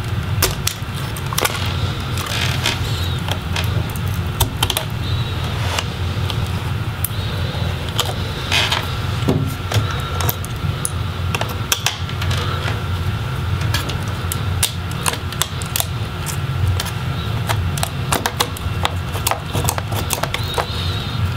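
Irregular small clicks and taps of fingers freeing connectors and handling a laptop motherboard and its plastic chassis, over a steady low hum.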